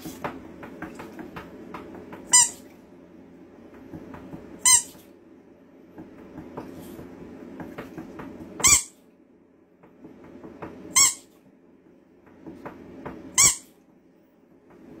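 A squeaky dog toy squeezed by hand, giving five short, sharp, high squeaks about two seconds apart, over a low steady hum.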